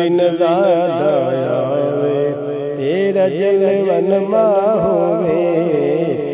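Music from a Punjabi Sufi devotional song: a melody line with a constant wavering vibrato over steady sustained drone notes, with no words sung.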